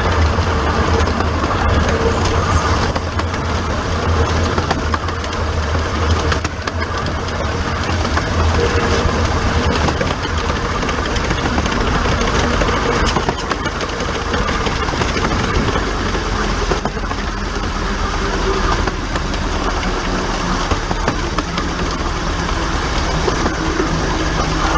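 15-inch-gauge steam locomotive under way, heard close up from a microphone mounted on its own pipework: a steady, loud mix of mechanical rattle, wheel-on-rail noise and hiss. The deep rumble shifts lower about halfway through.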